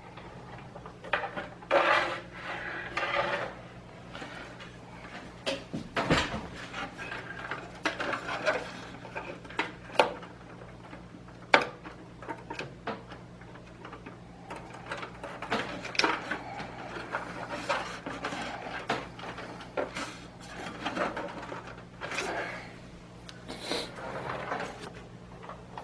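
Hands working cables and connectors inside a PC case: scattered clicks, knocks, rattles and rubbing of plastic and metal, over a steady low hum.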